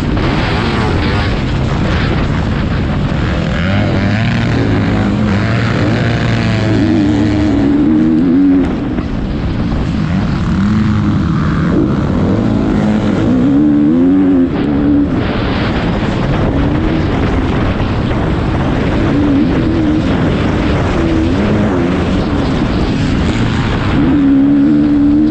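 Motocross bike engine heard up close from the bike itself, its note rising and falling as the rider opens and closes the throttle, briefly backing off about a third of the way in and again past the middle.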